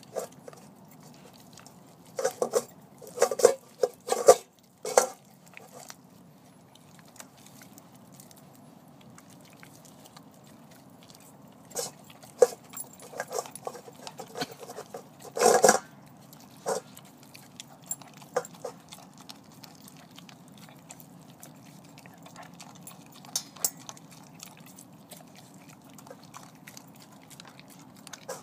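Vizsla chewing and biting on a raw chicken thigh: irregular clusters of crunching and smacking, one a few seconds in and a longer one around the middle, over a low steady hum.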